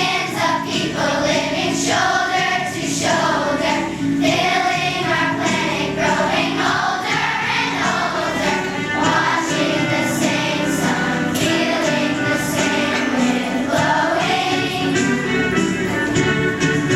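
A choir singing, several voices together in a steady, continuous song.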